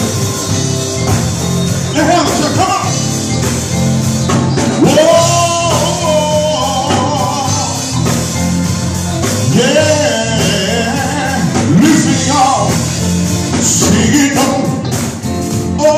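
Live gospel group performing: a male lead vocalist sings into a microphone over electric guitars and a band, with steady bass notes underneath.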